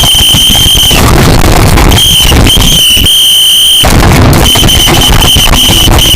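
A loud, heavily distorted high-pitched electronic tone, used as a meme 'alarm'. It sounds for about a second, stops, returns in several blasts with short breaks, then comes on again near the end, all over a wash of harsh, clipped noise.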